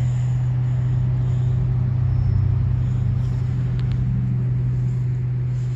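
A loud, steady low hum held at one unchanging pitch, over a faint low rumble.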